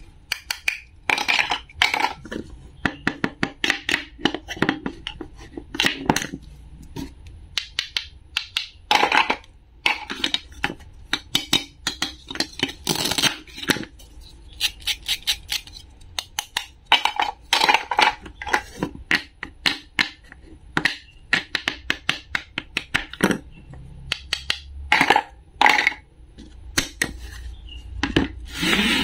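Plastic toy food pieces and a wooden toy knife being handled on a wooden cutting board: many short, sharp clicks and taps, with a few longer scraping bursts.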